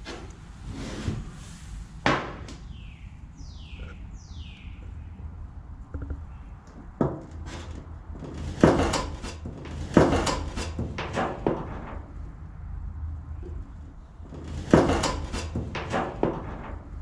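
Intermittent knocks and clatter of hard objects being handled, in several bursts, the loudest near the end, with two or three short falling chirps about three to four seconds in.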